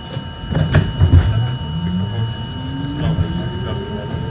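Subway train pulling away from a station: its traction motors give a whine that rises steadily in pitch as it speeds up, over the rumble of the car. A few sharp knocks come in the first second.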